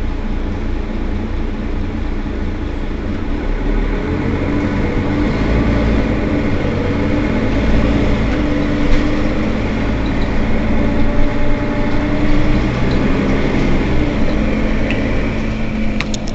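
Mercedes-Benz Citaro facelift city bus engine running steadily. It grows louder and works harder from about four seconds in, then eases again, with a few sharp clicks at the very end.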